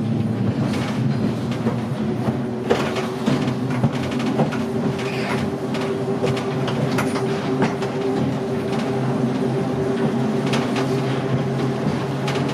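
Leeds Horsfield tram No. 180 running along the track under power, with a steady motor whine that comes in about two seconds in and holds. Scattered clicks and knocks come from the running gear over the rails.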